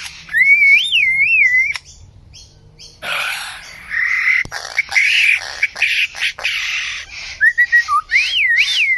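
A single bird running through a varied string of calls: a warbling whistle that rises and falls, a short pause, then harsh raspy calls mixed with sharp clicks, and more whistled glides near the end.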